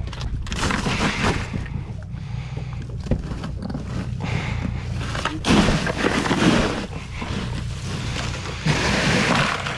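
Crushed ice in a cooler crunching and shifting as a fish is packed into it by hand, louder in two stretches past the middle and near the end, over a steady low rumble.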